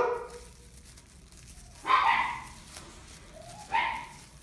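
A dog barking: three short barks, the first at the start, then about two seconds in and again near the end.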